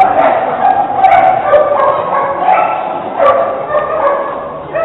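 Dog barking and yipping excitedly, call after call in a continuous, loud run.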